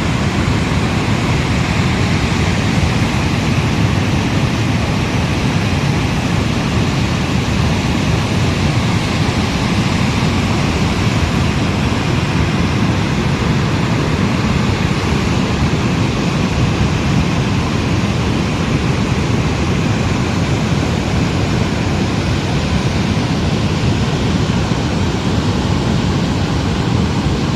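Loud, steady rush of floodwater from a swollen river, running on without a break.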